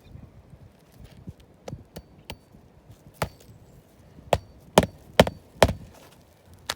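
A series of sharp, irregular knocks and taps, about nine, the loudest coming in a quick run in the second half: tools striking on a shingle roof during a shingle repair.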